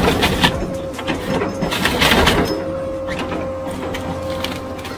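Hydraulic forestry machine working its crane and grapple head among felled logs: a steady hydraulic whine over the engine's hum, with clattering and knocking of wood and metal that peaks near the start and again about two seconds in.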